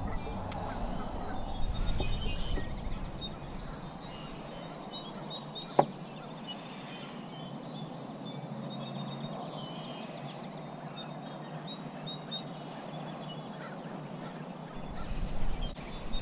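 Birds calling and chirping in short repeated bursts, with one sharp click about six seconds in. Low wind rumble on the microphone at the start and again near the end.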